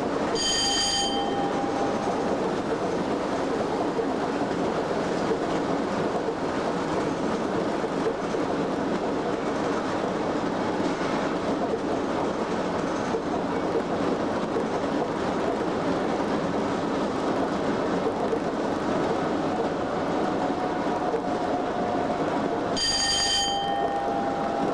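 Steady running noise inside the cab of a Class 87 25 kV AC electric locomotive at speed: wheels on rail and the locomotive's machinery. A short bell-like ding sounds twice, once near the start and once near the end.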